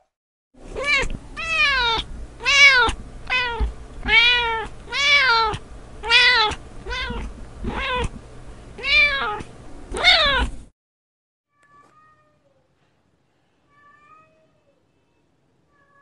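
Domestic cat meowing over and over in a rapid string of more than a dozen loud meows, each rising then falling in pitch. The string stops about ten and a half seconds in, followed by a couple of faint, short meows.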